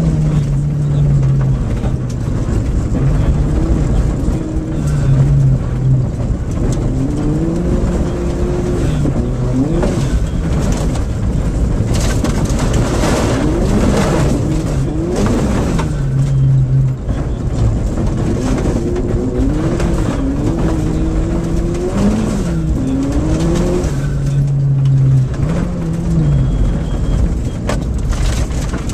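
In-cabin sound of a VW Golf GTI rally car at full stage pace on gravel. The engine revs rise and fall repeatedly through gear changes, with stretches held at steady revs, over a constant rush of tyre and gravel noise and scattered stone clatter against the car.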